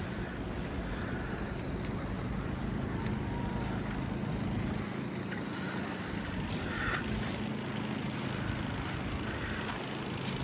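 City street traffic: a steady low hum of vehicle engines and tyre noise on slushy pavement, with a few faint scattered clicks.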